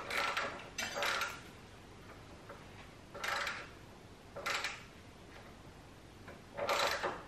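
Hand tools working on a car's front suspension at the hub: five short bursts of metallic clicking and clinking, spaced unevenly.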